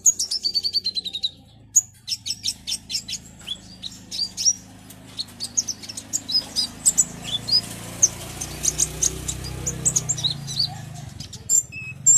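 A caged purple-throated sunbird (kolibri ninja) calling excitedly. It opens with a fast trill falling in pitch, then gives a long run of sharp, high chips and short twittering notes, with wing flutters.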